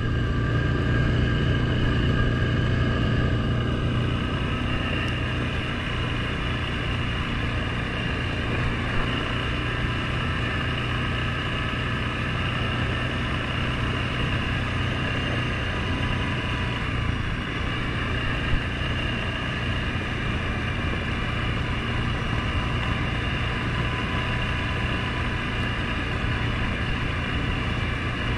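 Suzuki KingQuad 750 ATV's single-cylinder engine running steadily while riding along a dirt trail, with a couple of small knocks from bumps along the way.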